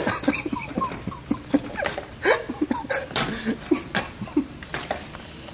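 Small dog whimpering in short high cries, mixed with quick clicks and scratches of its claws against a screen door. The sounds stop shortly before the end.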